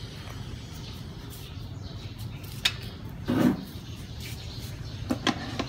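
A large metal cooking pot being carried and set down on a stove burner: a few knocks and clicks of metal, the two sharpest near the end, over a steady low background hum.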